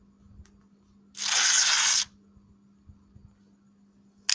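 A sound effect from a horn app played through a phone's speaker: a burst of hiss with no pitch to it, lasting about a second, then a second short hiss near the end.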